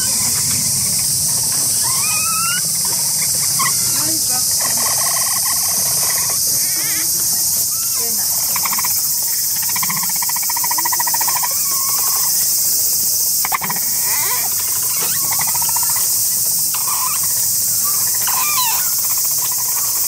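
Capybaras making their purring, chattering "singing" calls, buzzy bouts of a second or two repeated through, with a few short rising squeaks. A steady high insect drone runs underneath, and there is one sharp click about two-thirds of the way through.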